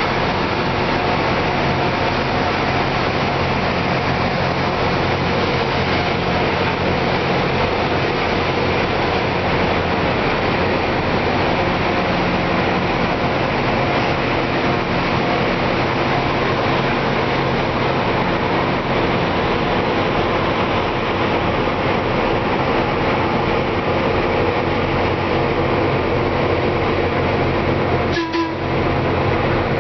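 LORAM rail grinder running past with its grinding stones on the rail: a loud, steady rushing grind over the drone of its diesel engines, broken briefly near the end.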